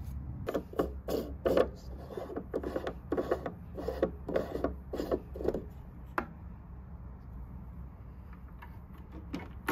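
Plastic and metal clicks of a MIG wire spool being fitted onto the spool holder of a Migatronic RallyMig 161 welder and its retaining knob turned: a quick run of clicks, about three a second, for over five seconds, then a single click and a few faint ones near the end, over a low steady hum.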